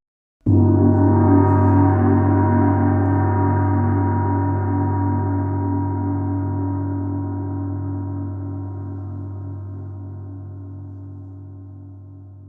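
A single gong strike about half a second in, ringing with a deep, slowly pulsing hum and fading away over more than ten seconds.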